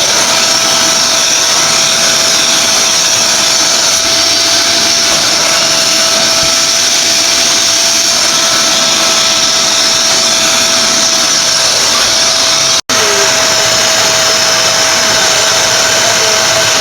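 Bennett Read vacuum cleaner running steadily: a loud hiss of rushing air with a steady whine through it. The sound drops out for an instant about thirteen seconds in.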